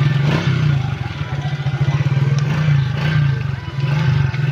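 Suzuki Smash 115 motorcycle's single-cylinder four-stroke engine idling steadily, a rapid even beat of exhaust pulses.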